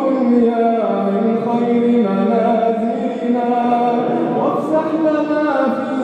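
A man's voice chanting an Arabic supplication (du'a) in long, melodic held notes that step up and down in pitch.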